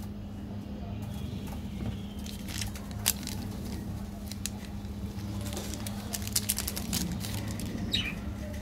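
Plastic chocolate-bar wrapper crinkling and crackling in scattered bursts as it is handled and opened, with a sharp click about three seconds in, over a steady low hum.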